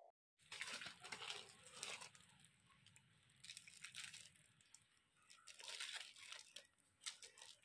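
Faint crinkling and rustling of packaging being handled, coming in several short spells with pauses between them.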